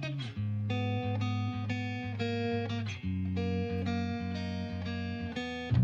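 Background music of plucked guitar over low bass notes, the notes changing every half second to a second.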